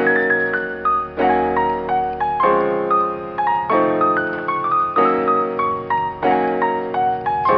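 Background music: a piano tune, with a chord struck about every second and a quarter and a melody of single notes above it.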